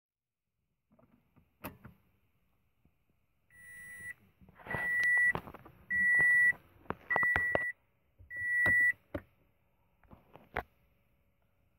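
A 2016 Toyota Corolla LE's dashboard warning chime beeping five times at an even pace, about one beep a second, with a few sharp clicks before and after; the engine is not yet running.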